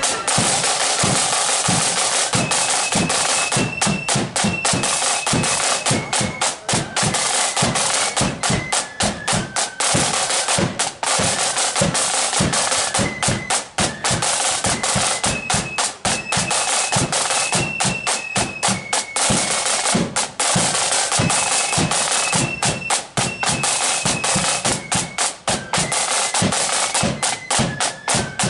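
Marching flute band playing: a high flute melody, repeated, over rapid snare drum rolls and bass drum beats.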